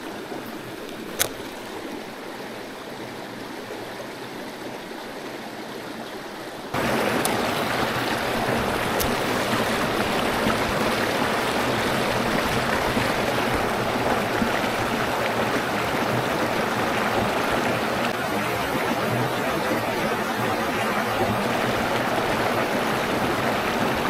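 Creek water running over rocks in a shallow riffle, a steady rushing that gets suddenly louder about seven seconds in. A single light click about a second in.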